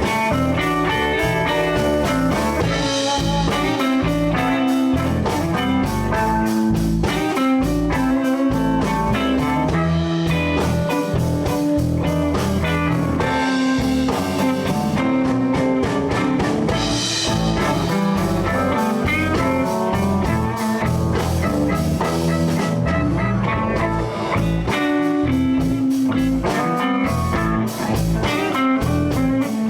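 Live blues band playing an instrumental passage: guitar lines over bass and a steady drum-kit beat, with no singing.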